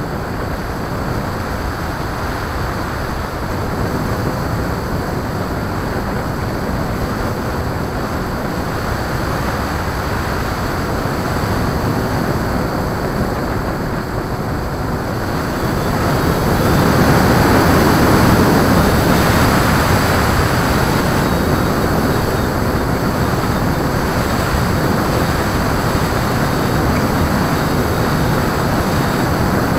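Steady rush of wind and propeller noise on an RC airplane's onboard camera in flight, swelling louder about sixteen seconds in and then easing back a little.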